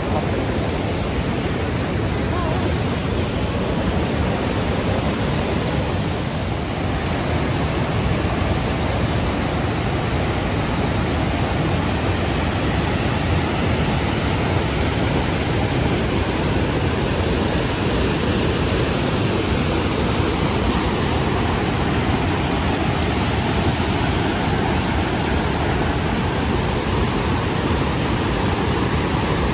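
Waterfall pouring over rock ledges close by: a loud, steady rush of falling water.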